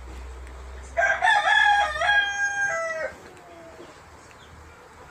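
A rooster crows once: a pitched call of about two seconds, starting about a second in, in several joined parts, with the last part falling in pitch.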